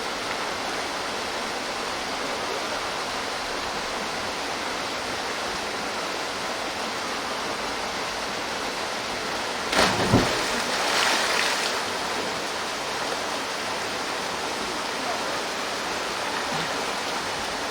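Steady rush of a waterfall pouring into a pool. About ten seconds in, a person dives in with a sharp splash, and a second of spray and churned water follows.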